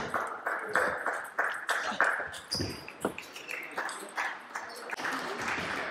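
Table tennis rally: the ball clicks sharply off rackets and table in quick alternation, about two to three hits a second, and the rally ends about halfway through. Background chatter fills the hall.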